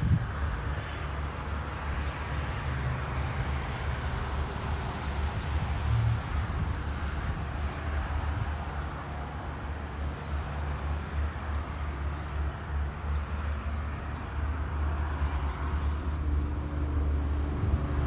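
Outdoor ambience: wind buffeting the microphone as a steady, uneven low rumble, over a hiss of distant road traffic.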